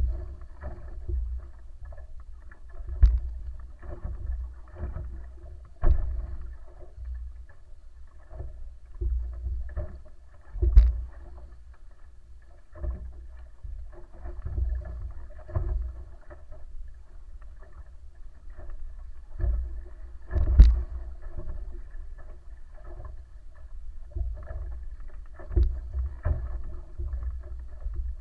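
Wooden Polynesian outrigger sailing canoe (wa'apa) moving through the water: a steady low rumble broken by irregular thumps every few seconds.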